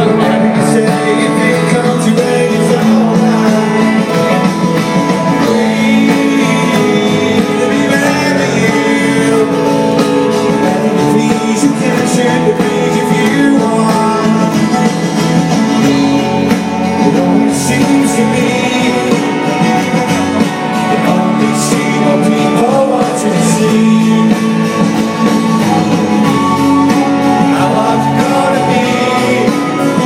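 Live rock band playing a guitar-led song with lead singing, heard from far back in a large open-air crowd.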